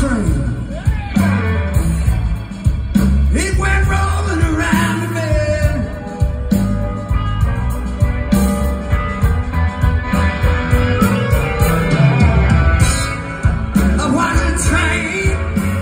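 Live blues-rock band playing: electric guitars, bass, drums and keyboards, loud and continuous.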